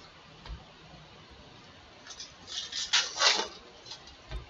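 Foil trading-card pack wrapper crinkling and cards rustling as they are handled, in short bursts that are loudest about three seconds in. Two soft low thumps, one early and one near the end.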